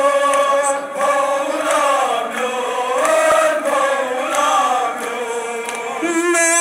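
Kashmiri noha, a Shia Muharram lament, chanted by a crowd of men in a slow melody with long held notes.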